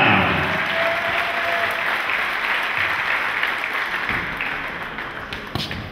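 Crowd applauding in the arena, the clapping slowly dying away, with a couple of sharp knocks near the end.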